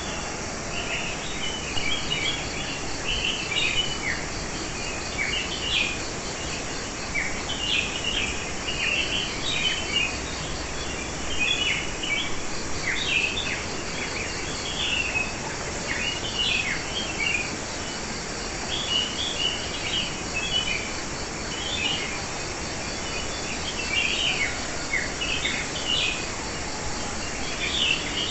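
Wild songbirds singing in short chirpy phrases, with quick downward-sweeping notes coming every second or two, over a steady insect trill.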